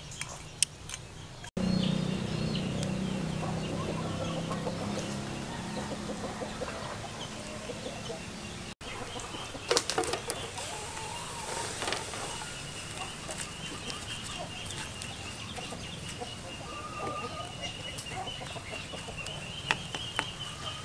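Chickens clucking in a farmyard, over a steady high pulsing chirr and a few sharp clicks.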